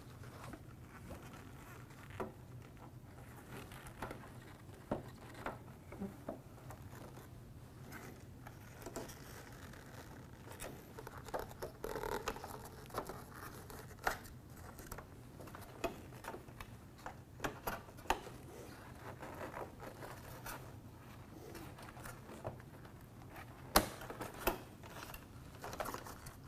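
Plastic accordion side filler panel of a window air conditioner being slid onto its mounting clips and worked into place: scattered light plastic clicks, scrapes and rustles, with one sharper click near the end. A faint steady low hum runs underneath.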